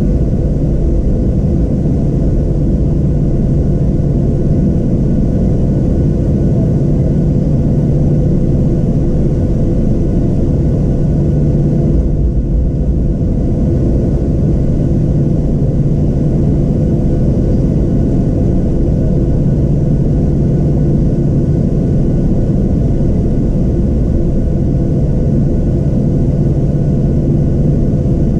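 Inside the cabin of a Boeing 737-700 while it taxis, its CFM56-7B turbofan engines are running at idle. The sound is a steady low rumble with faint, steady whining tones above it.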